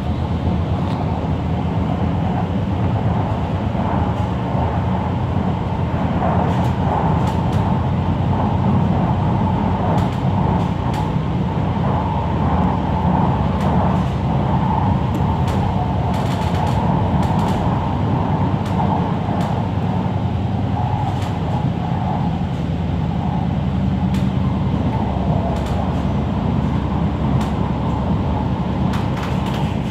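MTR C-train electric multiple unit running at speed, heard from inside the carriage: a steady noise of wheels on rail and the train's motors, with no let-up.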